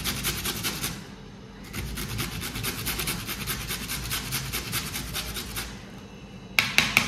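Raw carrot being grated by hand on a metal grater: fast, even rasping strokes, several a second, with a short pause about a second in. A few sharp knocks come near the end.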